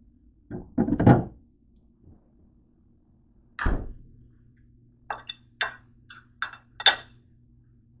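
Kitchen handling sounds: a refrigerator door bumping and thumping shut about a second in, a heavy thud as something is set down on the counter near the middle, then a quick series of sharp clicks and clinks like a fork and plate being handled, over a low steady hum.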